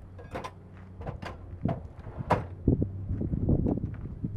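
A run of irregular knocks and clicks of uneven loudness over a steady low hum.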